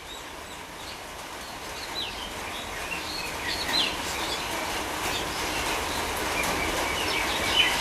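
Steady outdoor rushing noise that slowly grows louder, with short bird chirps scattered over it.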